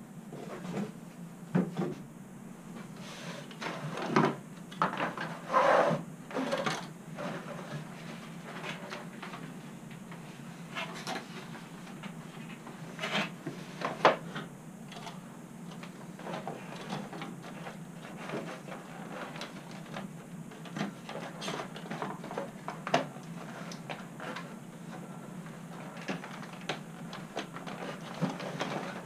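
Irregular clicks, taps and crinkles of clear plastic packaging being handled on a workbench, with a small plastic model truck picked up and set down. A sharp click about fourteen seconds in is the loudest.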